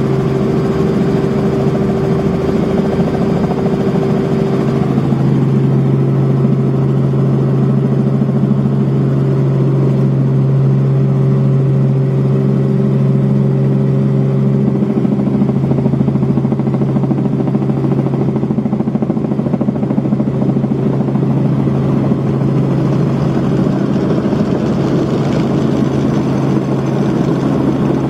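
Cabin noise of a Robinson R44 Raven I helicopter as it comes in low and settles on the ramp: the steady drone of its piston engine and rotors, dominated by a constant low hum.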